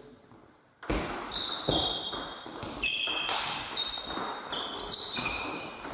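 Table tennis doubles play in a sports hall: short high sneaker squeaks on the hall floor and sharp ball knocks, echoing in the large hall. It starts suddenly about a second in.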